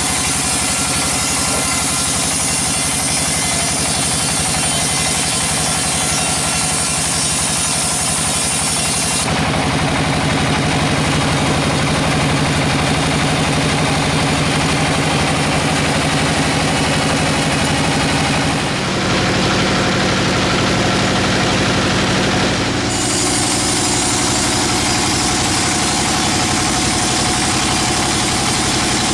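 Band sawmill running steadily with its engine, a humming drone under a high hiss. The sound changes character abruptly about a third of the way in, again near two-thirds, and shortly after.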